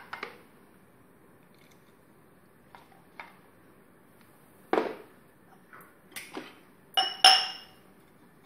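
A metal spoon knocking and clinking against a plastic strainer and bowl as blended phalsa purée is pressed through the sieve. The sharp knocks are scattered, and the loudest two come close together near the end with a short metallic ring.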